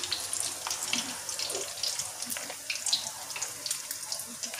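Potato fritters (perkedel) deep-frying in hot oil in a steel wok: a steady sizzle with many scattered crackling pops.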